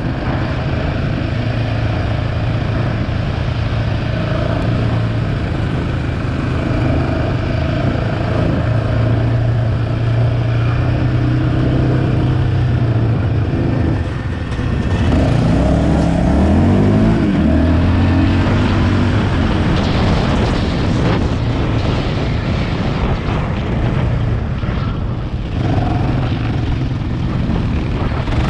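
Sport ATV engine running under throttle while riding over sand, heard from on board; the revs climb several times about halfway through as it accelerates.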